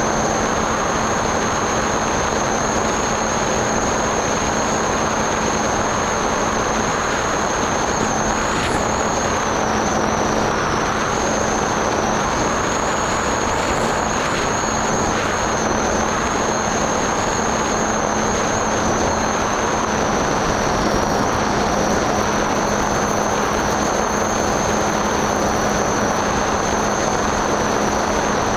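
Skyhunter FPV plane in flight heard from its onboard camera: a steady rush of airflow and electric propeller noise, with a low hum and a thin high whine that wavers slightly.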